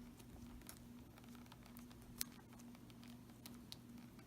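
Near silence: a faint steady hum with a few soft ticks from hands wrapping electrical tape around a twisted wire splice.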